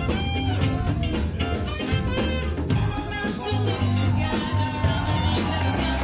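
Big band playing a jazz number: horn section over bass and drum kit, with one long held note from about halfway through.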